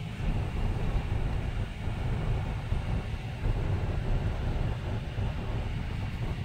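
Jeep Wrangler JK driving, heard from inside the cabin: a steady low rumble of engine and road noise.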